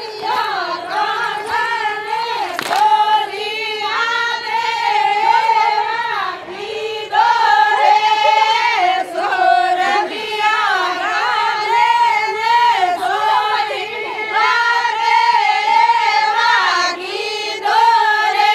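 A group of women singing a Marwari Fagan folk song together in one melody line, phrase after phrase with short breaks between them.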